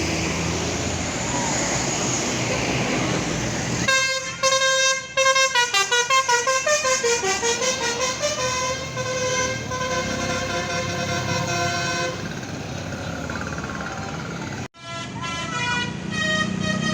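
Bus 'telolet' multi-tone horn playing a quick run of pulsed notes that step down in pitch for about eight seconds, over the noise of road traffic. After an abrupt break, another horn melody starts near the end.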